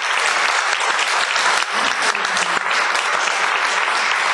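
Audience applauding: many people clapping steadily, a dense patter of claps at the end of a poem.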